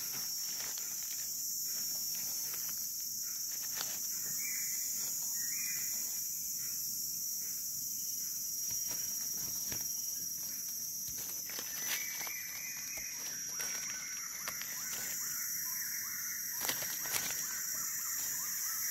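A steady high-pitched chorus of forest insects, with faint rustling of dry leaves and light clicks as small wild mushrooms are cut from the leaf litter with a knife. A bird gives drawn-out calls about four seconds in and again from about twelve seconds on.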